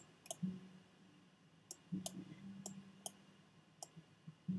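Computer mouse clicking, about seven faint single clicks spread irregularly. A faint low hum sits behind them in stretches.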